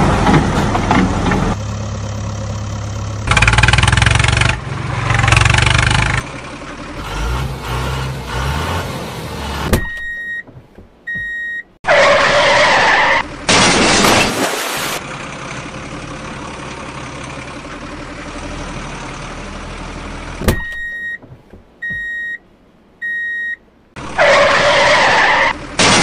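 Truck sound effects laid over toy trucks: a heavy engine running low, broken by loud bursts of hiss of about a second each. A reversing alarm beeps twice about ten seconds in, and three more times near the end.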